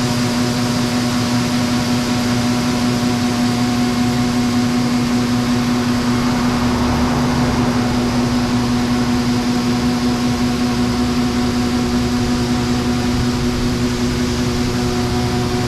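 John Deere 9570 STS combine running steadily while harvesting soybeans: an even machinery drone with a constant hum. The drone swells slightly about halfway through.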